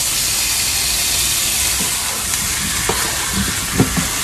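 Raw chicken pieces sizzling steadily in hot oil with onions in a frying pan, stirred with a wooden spatula. A few light knocks of the spatula against the pan come in the second half.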